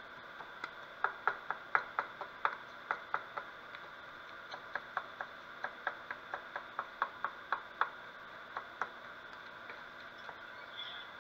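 A wooden spatula stirring a simmering butter sauce in a frying pan, making a run of light clicks and taps, about three a second, over a steady faint hiss. The clicks stop near the end.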